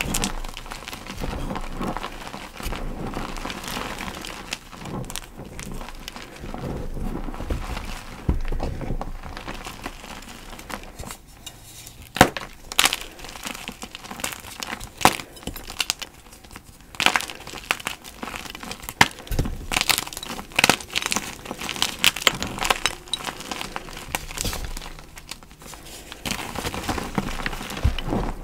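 Gym chalk being handled and crunched: a dense crinkly rustling at first, then from about halfway through a run of sharp cracks and crunches as the chalk breaks.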